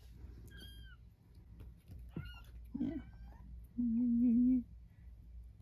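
Young kittens mewing: thin, high-pitched mews that fall in pitch, one about half a second in and more around two to three seconds in. Near the end a person hums one low steady note for under a second, the loudest sound here.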